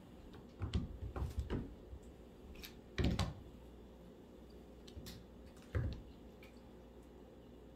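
Kitten's paws thumping on a hardwood floor as it leaps and lands: a quick run of dull thumps about a second in, a louder one around three seconds, and another near six seconds.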